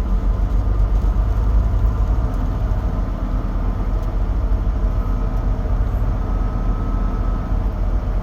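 Steady low rumble inside a semi truck's cab as its diesel engine runs in slow, stop-and-go traffic. A faint thin whine comes in about five seconds in and fades out near the end.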